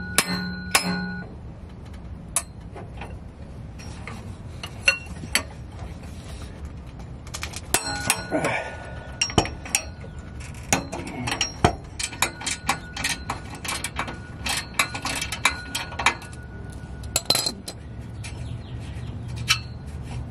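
Hand tools clinking and knocking against a car's exhaust hardware as a pipe wrench and a ratchet work the stubborn, rusty flange nuts of the exhaust mid-pipe loose. The sound is a run of irregular sharp metal knocks and clicks.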